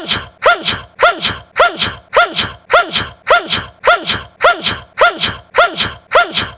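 A man's short, high-pitched sneeze repeated in a rapid, identical loop, about three a second, each sneeze falling in pitch.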